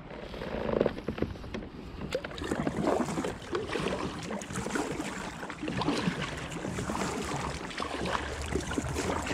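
Kayak paddle strokes: the blades dipping and splashing in calm river water with drips running off, in an uneven run of small splashes.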